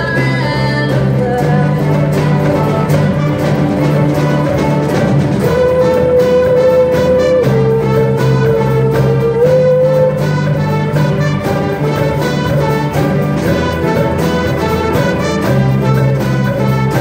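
Live pop-folk band with a horn section of trumpets, saxophones, trombone, flutes and clarinet playing an instrumental passage over bass, guitars, piano and drums, with a long held note in the middle.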